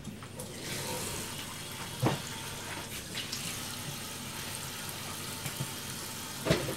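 Water pouring in a thin stream into a pour-over coffee dripper, with a soft knock about two seconds in and another near the end.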